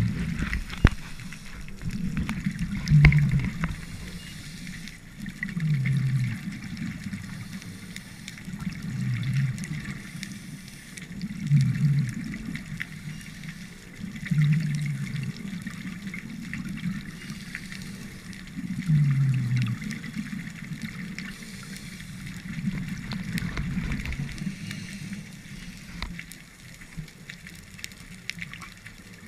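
Scuba regulator breathing heard underwater: a short low rush of exhaled bubbles about every three seconds, over a steady water hiss.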